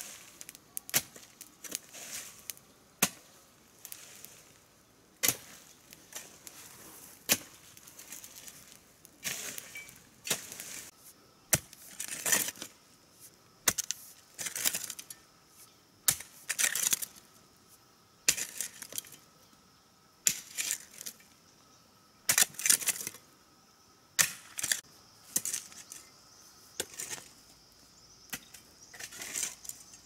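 Irregular sharp knocks and clicks, one every second or two, some followed by a short scraping or rustling burst, over a faint steady high tone.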